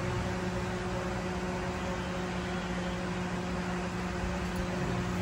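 Steady machine hum with a low, even drone and a light hiss, and one sharp click near the end.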